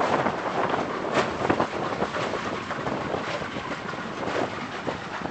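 Wind buffeting the microphone aboard a small boat, over a steady rush of boat and water noise, with irregular gusts throughout.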